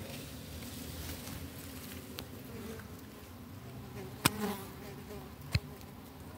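A flying insect buzzing with a low, wavering hum that fades about four seconds in. Two sharp clicks, a little over a second apart, near the end are the loudest sounds.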